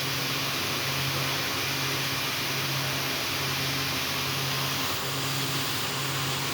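CNC machine running while cutting the teeth of a worm gear: a steady hiss with a low hum that swells and drops a little more than once a second.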